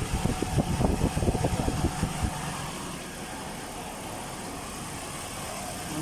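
Engine running at idle: irregular low knocks for about the first two seconds, then a steadier low rumble.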